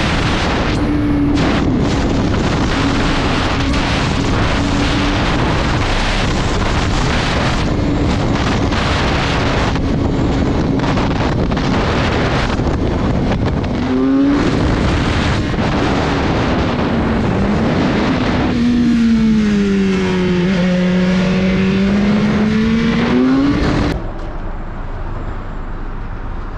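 BMW S1000R inline-four engine running at road speed under heavy wind rush on the helmet microphone. Later the engine note drops and climbs back as the throttle is rolled off and reopened. Near the end the sound falls to a much quieter background.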